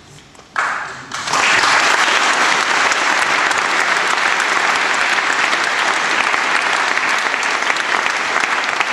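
Audience applauding: dense clapping that swells in about a second in and holds steady.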